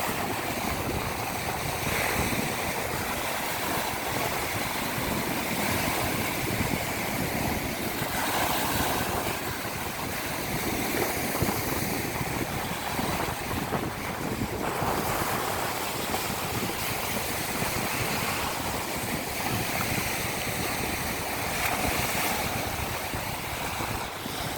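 Baltic Sea surf breaking and washing on the shore, swelling about every six seconds, with wind buffeting the microphone.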